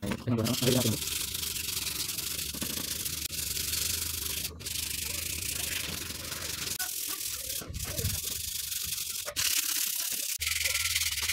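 80-grit sandpaper rubbed by hand along the rusty chrome tubes of a Yamaha RX100 luggage carrier: a steady scratchy sanding hiss with a few short breaks between strokes. It is scrubbing off surface rust and roughening the metal before filler and paint.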